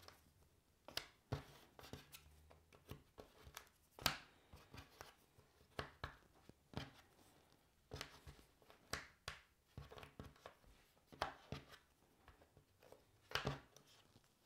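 Cardboard jigsaw puzzle pieces being picked up, slid and pressed into place on a wooden tabletop: light, irregular clicks and taps, with a louder tap about four seconds in and another near the end.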